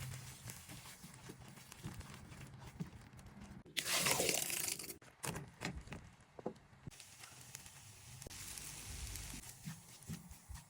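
Kitchen food-preparation noises: rustling and small clicks, with one loud rustling, tearing-like burst lasting about a second, about four seconds in.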